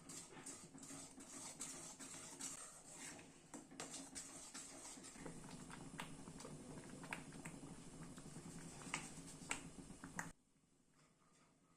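Scattered light clicks and taps of kitchen utensils during food preparation, over a steady low hum, cutting off abruptly near the end.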